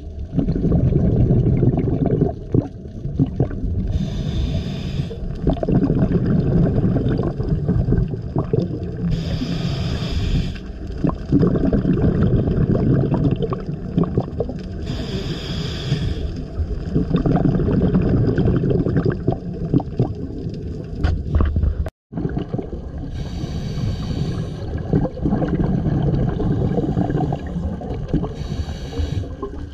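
Scuba diver breathing through a regulator underwater: a hiss on each inhale about every five to six seconds, with rumbling, gurgling exhaust bubbles on the exhales in between.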